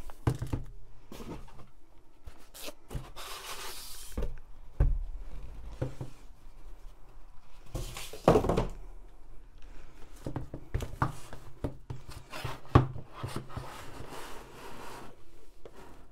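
Long shrink-wrapped cardboard boxes being lifted out of a cardboard shipping box and laid on a wooden table: irregular knocks, scraping and rustling, with a few sharper knocks.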